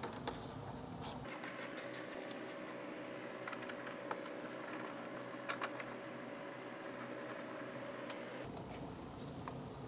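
Hand socket ratchet clicking in quick runs of light ticks while 10 mm bolts are turned loose.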